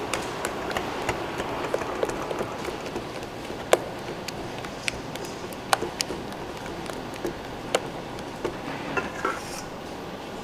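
Kitchen utensils and bowls clinking and knocking at an irregular pace, with a short ring after the louder strikes, over a steady background hiss.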